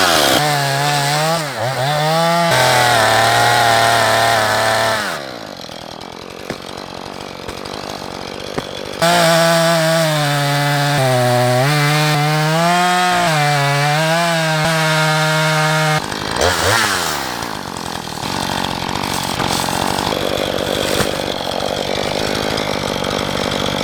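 Two-stroke chainsaw cutting through a dead, rotted tree trunk, its engine pitch wavering as it runs at high throttle under load. It drops to a quieter, rougher running sound between cuts, about five seconds in and again after the middle.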